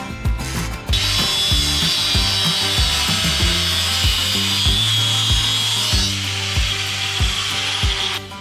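An angle grinder cutting steel, a loud high-pitched shriek that starts about a second in and cuts off abruptly near the end. Background music with a steady beat runs underneath.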